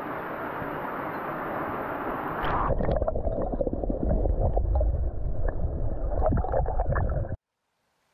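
Steady rush of flowing canyon water. About two and a half seconds in it switches to louder, muffled gurgling water with many small knocks and a deep rumble, which cuts off suddenly near the end.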